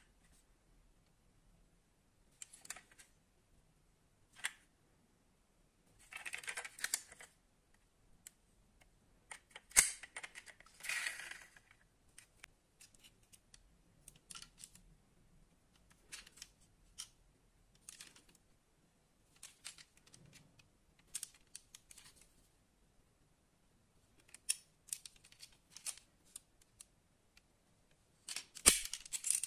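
Fingers handling small diecast metal toy cars: scattered light clicks, taps and rustles as the models are turned over and their parts moved, with a louder rustling burst about ten seconds in and another near the end.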